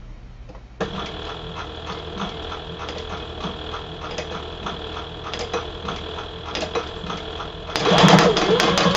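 Sailrite Fabricator industrial walking-foot sewing machine stitching through eight layers of denim: it starts about a second in and runs with a steady, rapid stitch clatter, getting noticeably louder near the end.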